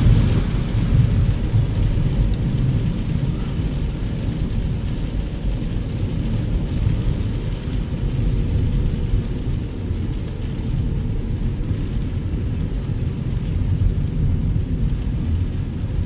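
Car driving on a rain-soaked road, heard inside the cabin: a steady low rumble of engine and tyres on wet asphalt.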